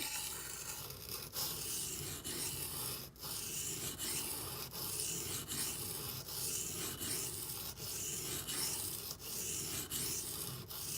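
D2 steel knife blade being ground back and forth on a coarse 240-grit silicon carbide benchstone: a continuous gritty scraping with a short break at each change of stroke, about once a second. The grinding is raising a burr along the edge.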